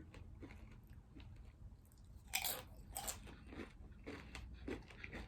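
Tortilla chip being bitten and chewed: two sharp crunches about two and three seconds in, followed by several softer chewing crunches.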